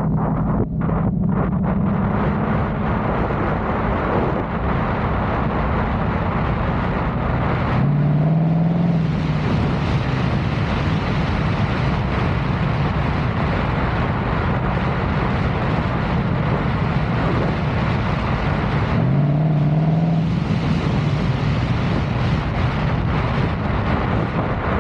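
Car driving, its engine running under a steady rush of road and wind noise. The engine note climbs twice, about eight and nineteen seconds in, as the car accelerates.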